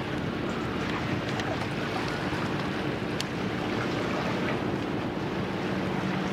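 Diesel engine of a pusher tug hums steadily as it pushes a barge, over a constant background rush of wind and water.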